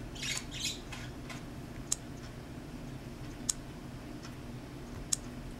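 A bird squawks briefly twice near the start, then three sharp ticks come about a second and a half apart over a faint steady room hum.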